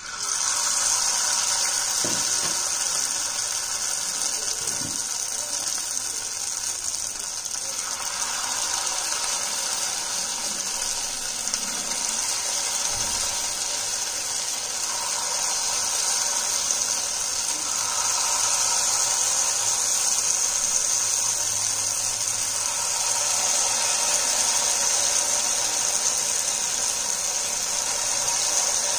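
Batter-coated potato pieces deep-frying in hot oil, a steady sizzle.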